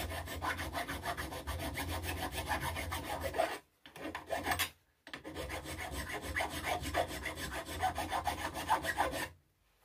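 Hand file (second cut) rasping across the edges of a cut-down metal socket in quick, rapid strokes, smoothing them after rough filing. Two long runs of strokes with a short break about four seconds in, stopping just before the end.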